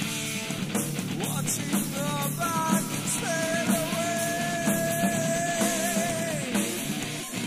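Heavy metal band demo recording, with distorted guitar, bass and drums playing throughout. From about three seconds in, a long high note is held, then slides down just before the end.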